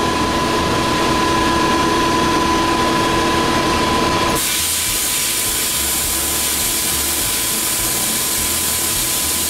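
Sandblast cabinet gun blasting abrasive onto a rusty steel bracket, a steady hiss. About four seconds in the sound changes to a sharper, higher hiss.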